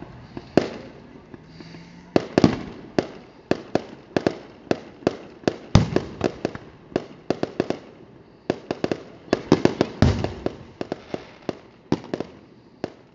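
Fireworks display: aerial shells bursting in quick, irregular succession, about three sharp bangs a second, with two deeper, louder booms, one near the middle and one about three quarters through.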